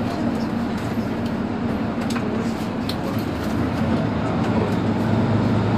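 Mercedes-Benz Citaro C2 city bus standing at a stop with its engine idling: a steady low hum that grows louder near the end.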